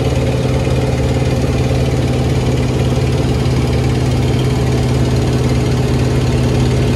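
Antonov An-2's nine-cylinder Shvetsov ASh-62 radial engine running steadily in flight, heard from inside the cockpit as an even, unchanging drone with a strong low hum.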